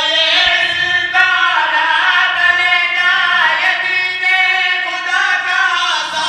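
A man sings a qaseeda, a devotional poem, into a microphone with no instruments. He holds long notes that slide between pitches, in several drawn-out phrases.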